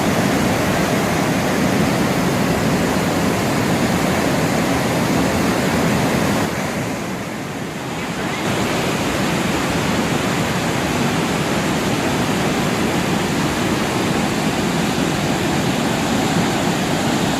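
Steady loud rushing of Haew Narok waterfall, an even roar of falling water. It dips briefly for a second or two a little before halfway through.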